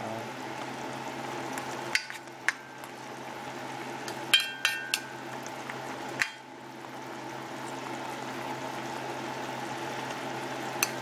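Chicken pieces bubbling and sizzling in their juices in a stainless steel pot, with a few sharp knocks of a stirring spoon against the pot, some ringing briefly.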